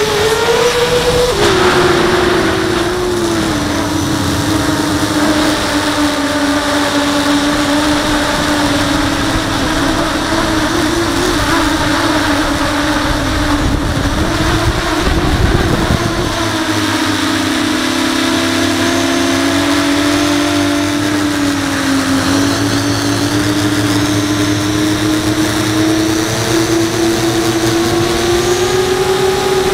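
An FPV racing quadcopter's brushless motors and 5-inch propellers whining steadily, the pitch following the throttle: it drops sharply about a second in, sags lower around the middle and climbs again near the end. Wind rumbles on the onboard camera's microphone and is heaviest about halfway through.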